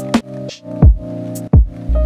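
Background music with a steady beat: a deep kick drum about three times every two seconds under sustained chords, with light high percussion hits.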